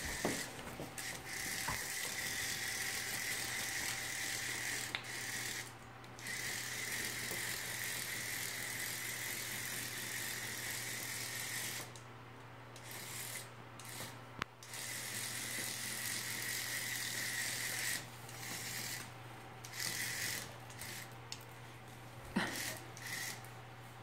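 Remote-control toy cockroach's small motor buzzing and rattling as it scuttles over the tile floor. It runs for several seconds at a time with short pauses, then comes in short bursts near the end.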